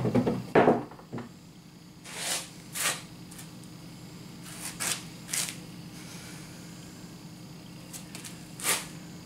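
A wooden workbench top is set down onto its frame with a cluster of knocks and thumps in the first second. A few short, faint rustles and scrapes follow over a steady low hum.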